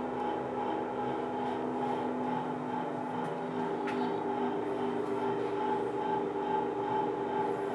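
A steady machine hum made of several held tones, unchanging throughout.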